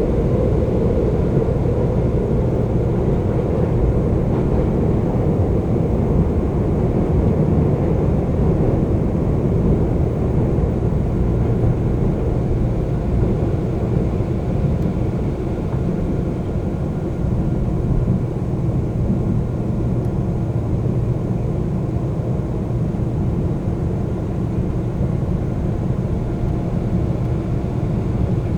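Seoul subway train running between stations, heard from inside the car: a steady low rumble of wheels on the rails and the train's motors, with faint steady tones over it and easing slightly near the end.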